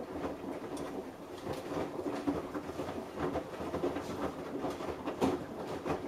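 Samsung Eco Bubble front-loading washing machine turning its drum, wet laundry tumbling and sloshing with a run of irregular soft knocks.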